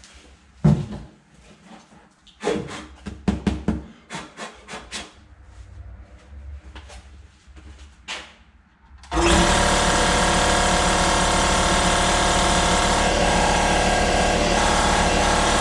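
A few knocks and bumps, then about nine seconds in the Husky 60-gallon air compressor with its Sanborn 755H pump starts suddenly and runs loudly and steadily, pumping up the tank. Its blown reed valve has just been replaced.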